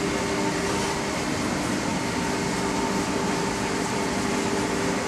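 Steady mechanical hum with an even rush of air, carrying a couple of faint constant tones, the background running of workshop machinery such as air conditioning.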